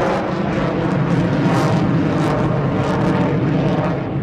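Jet noise from a Sukhoi Su-30MKM fighter's twin thrust-vectoring turbofan engines as it manoeuvres overhead: a loud, steady rushing roar.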